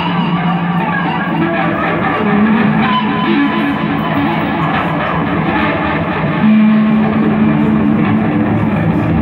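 Electric guitar played live through a chain of effects pedals, making a dense, noisy wash over a held low note. The low note steps up about two seconds in, and again, louder, at about six and a half seconds.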